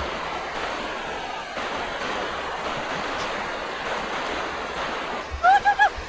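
Steady rush of a fast, muddy river flowing through shallow rapids. Near the end, a few short, high, arching calls repeat.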